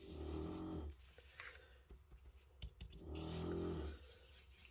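Dog snoring: two drawn-out snores about three seconds apart, each just under a second long. Between them come a few faint clicks of a marker on paper.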